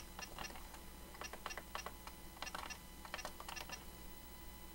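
Faint clicks of the Lexmark X5495 all-in-one's control-panel buttons being pressed in quick, irregular runs as a name is keyed in during setup.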